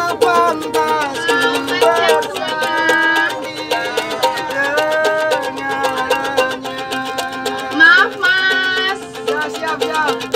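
A man singing in a strong voice, holding and bending long notes, while strumming a small ukulele-type string instrument in a fast, steady rhythm. His voice swells loudest about eight seconds in.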